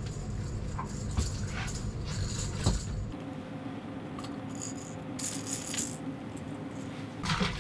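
Rattle bait (lipless crankbait) rattling in repeated short bursts as it shakes in a walleye's mouth, the beads clattering inside its body while the hooks are worked free.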